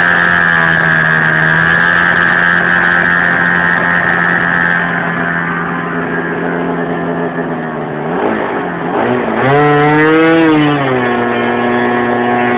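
Irvine ABC MkIV .40 two-stroke glow engine on a radio-controlled plane running at high, steady speed during running-in. About eight seconds in its pitch dips and wavers, surges briefly, then settles at a lower steady speed as the throttle is brought back.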